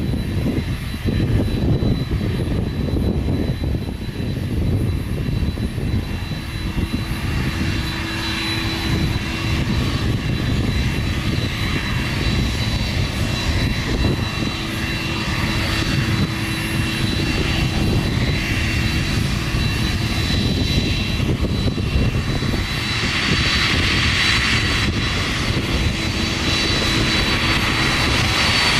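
Airplane engines running: a loud, steady noise with a thin high whine, swelling louder and brighter over the last few seconds.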